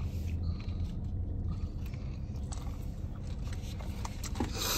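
A person chewing food with small wet clicks and crunches, over a steady low hum.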